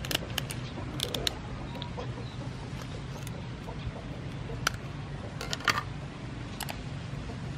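Kitchen scissors snipping and cracking through a raw lobster's shell: a series of sharp, irregular snips spread over several seconds, over a steady low hum.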